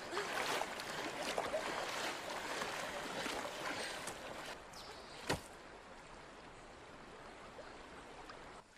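Flowing river water with splashing as a person swims and wades out of the shallows, fading away over several seconds, with one sharp knock about five seconds in.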